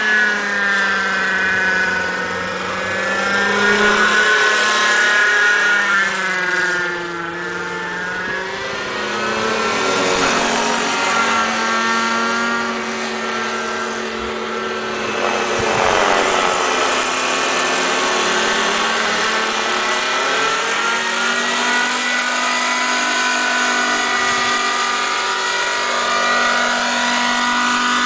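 Raptor 30 radio-controlled helicopter's nitro glow engine and rotors running at flying speed, a steady whine whose pitch swings up and down repeatedly as the model flies past and turns.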